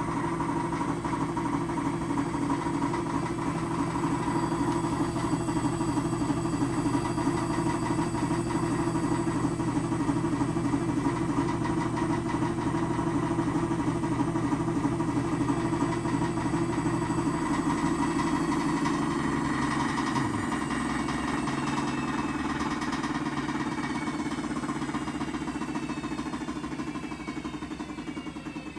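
A 2006 GE Adora washing machine in its spin cycle, running loudly with a fast, rhythmic rattling drone. The noise is the sign of a failing drum drive pulley, a bad bearing and a deteriorated spider. In the last seconds the spin slows, the pitch falls and the noise dies away.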